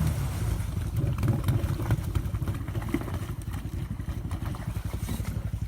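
ATV engine dropping off from high revs at the start, then running at low revs or idle with a rapid, even putter.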